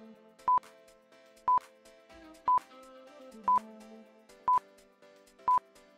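Electronic countdown timer beeping once a second, six short beeps of one pitch, over soft background music, ticking off the time to answer a quiz question.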